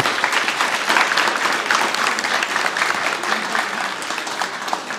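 Audience applauding: dense clapping that thins out near the end.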